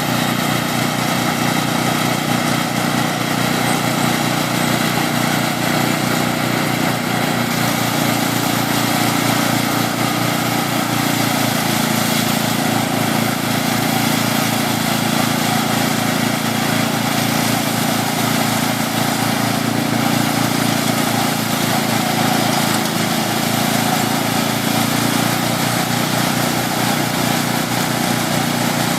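Small utility rice harvester working as a thresher, its small engine running steadily while it strips the rice grain from the dried stalks.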